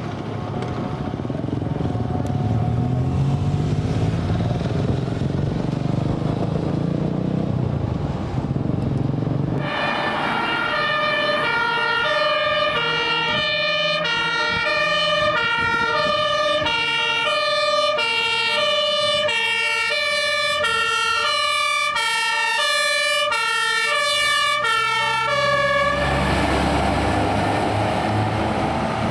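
Fire engine's two-tone siren (German Martinshorn) sounding in alternating high and low notes, starting suddenly about ten seconds in and cutting off shortly before the end. Before and after it, the low rumble of heavy vehicle engines driving by.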